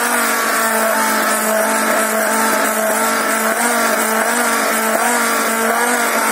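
Immersion blender motor running steadily with a constant hum, its blade emulsifying egg, garlic and oil into aioli in a tall plastic beaker.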